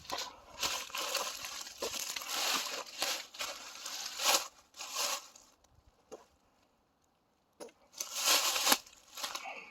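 Irregular rustling and crunching of trash and debris being handled or stepped through. It stops for over a second after about six seconds, then comes back louder.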